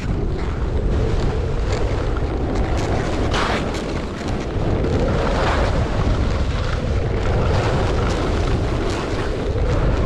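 Wind buffeting the microphone of a downhill skier, a loud steady rumble, with the skis hissing over packed snow and swelling twice in the middle as the skier turns.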